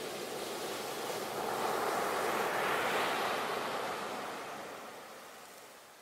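Ocean surf: the rush of a breaking wave swells to its loudest about halfway through, then fades away near the end.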